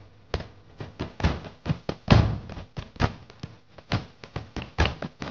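Indian percussion from a Bollywood film song: a fast run of sharp drum strikes, about four to five a second, starting a moment in, with no melody or singing over it.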